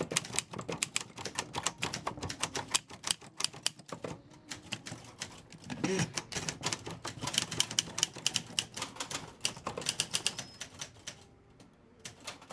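Antique manual typewriter being typed on: a rapid, irregular clatter of typebars striking the platen, with a brief pause near the end.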